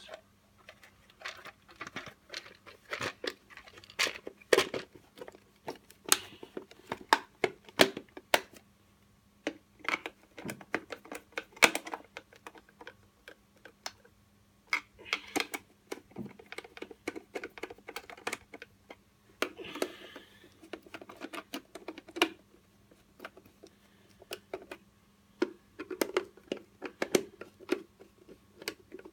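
Irregular clicks, taps and knocks from hands fitting a hoverboard's shell cover onto its frame and working its screws with a screwdriver.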